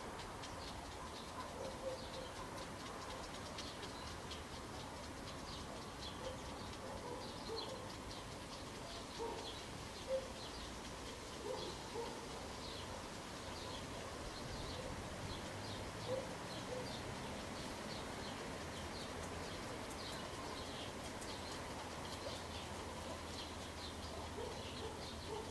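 Small birds chirping, with many short high-pitched chirps repeating throughout, mixed with scattered lower, shorter calls, over a steady low background hum.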